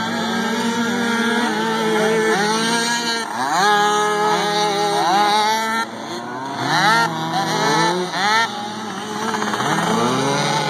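Several small youth mini-quad engines racing together. Their overlapping engine notes rise repeatedly as the riders throttle up, then drop back.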